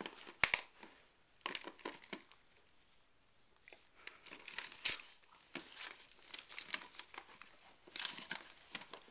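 Wrapping paper crinkling and tearing as a dog mouths and paws at a wrapped present, in irregular crackling bursts with a lull of about a second in the middle.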